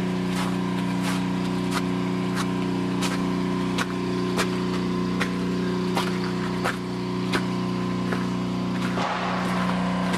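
Crisp crunching footsteps on ice-crusted ground, about three every two seconds, over a steady droning machine hum.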